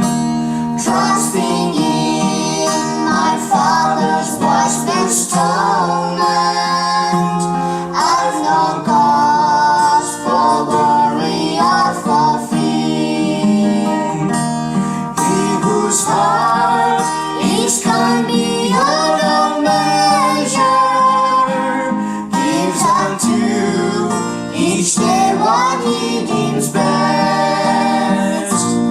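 A hymn sung with acoustic guitar accompaniment, a woman's voice prominent among the singers.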